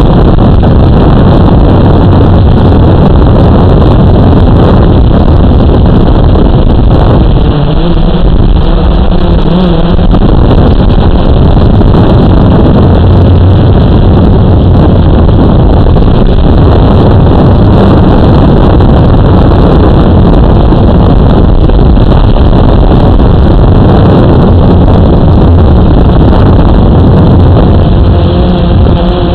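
Blade 350 QX quadcopter's electric motors and propellers buzzing steadily and loudly, heard close up through the drone's own camera. The hum wavers in pitch about eight seconds in and again near the end as the motors change speed.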